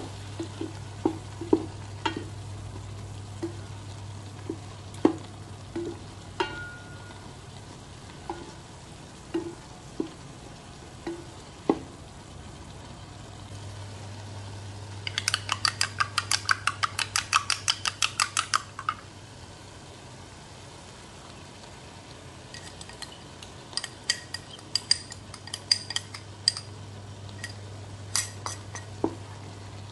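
Wooden spatula stirring fusilli in a metal rice-cooker pot, with scattered knocks against the pot. About fifteen seconds in, a fork beats egg in a glass bowl: a quick run of clinks, about eight a second, lasting some four seconds, followed by more scattered clinks.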